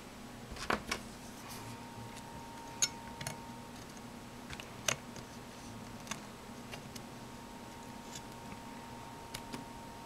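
Sharp little clicks and taps of an SD card being handled at the card slot of an Arduino data logger shield and fingers pressing on the board, about eight in all, the loudest about a second in, near three seconds and near five seconds, over a faint steady hum.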